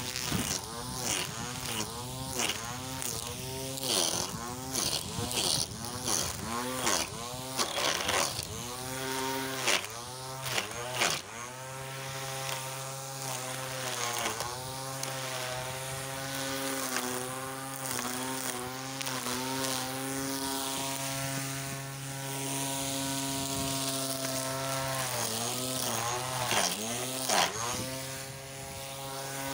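Battery-powered string trimmer's electric motor whining as its spinning head cuts grass. The pitch sags and recovers again and again as the head bites into the grass, holds steadier through the middle, and is mixed with sharp clicks of the cutting head striking grass.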